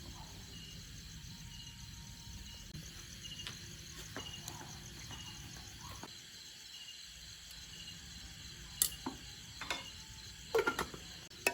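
Insects chirping in a steady repeating pattern over a low outdoor background, with a few sharp clicks or knocks in the last few seconds.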